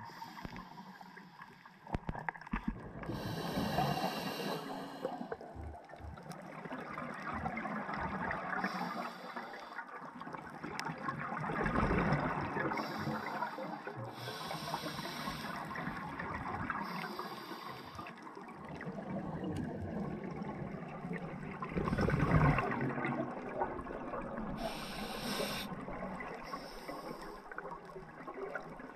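Scuba diver breathing through a regulator underwater: short hissing inhalations alternate with rushes of exhaled bubbles. The loudest bubble rushes come twice, about ten seconds apart.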